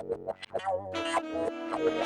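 Intro music: short plucked and synthesizer notes in quick succession, then a held note and a rising build from about a second in.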